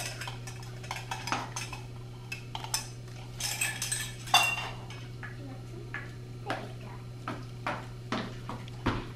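Toy tea set dishes and cups clinking and clattering on a table as they are handled, in short irregular knocks with a busier, louder run of clinks around the middle.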